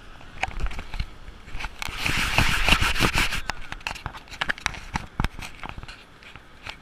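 Handling noise from an action camera being moved and set down on the sand: scattered clicks and knocks, with a louder stretch of rough rustling noise about two seconds in.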